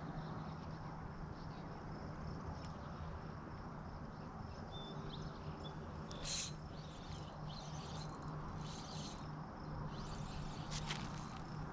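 Cast with a spinning rod and thin braided line: a brief loud hiss about six seconds in, then several shorter, fainter hisses as line is worked back in, over a steady low hum.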